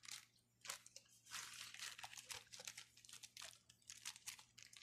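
Clear plastic bag crinkling faintly in short, irregular rustles as hands fold and press masa dough through it.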